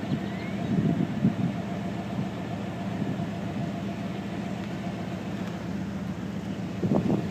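Steady low engine hum, like a vehicle idling, with a faint constant tone above it.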